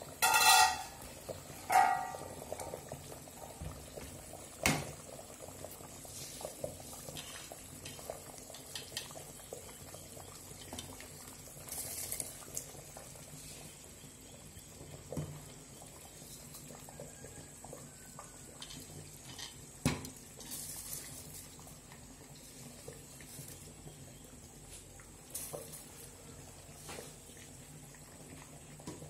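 Kitchen sounds while cooking: a low simmering-like background with scattered clinks and knocks of pots and utensils. The loudest are two short ringing clangs at the start, with sharp knocks at about five and twenty seconds in.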